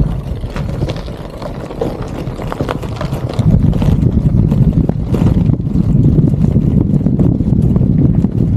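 A gravel bike rolling along a rough lane: a steady low rumble of tyres and wind with many small clicks and rattles. It gets louder about three seconds in as the tyres move onto a dirt and gravel track.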